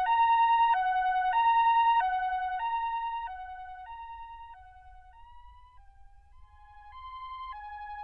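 Two-tone hi-lo siren effect from a Casio CT-X9000 keyboard's built-in sound effects, switching between two pitches about every three-quarters of a second. It fades away about halfway through, then builds up again at a slightly higher pitch.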